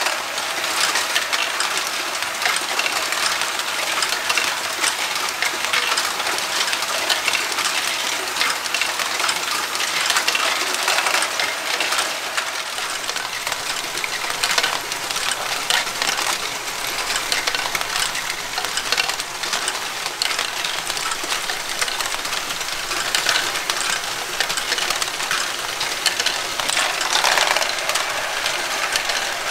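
A Lego Great Ball Contraption loop of many motorised modules running together: a steady, dense clatter of small plastic balls rolling, dropping and knocking through Lego Technic lifts, gear wheels and tracks, over the sound of the motors running.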